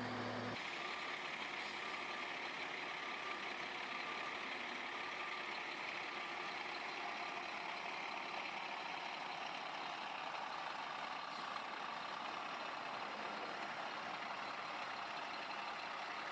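Heavy road-construction machinery running, heard as a steady, faint mechanical hiss. In the first half a reversing alarm beeps faintly over and over.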